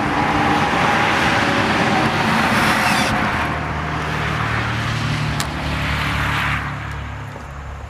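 A car driving past on a nearby road. Its tyre and engine noise swells up, holds for several seconds, then fades away.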